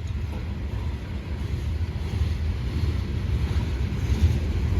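Low, steady rumble of a freight train's diesel locomotives, swelling slightly toward the end, with wind noise on the microphone.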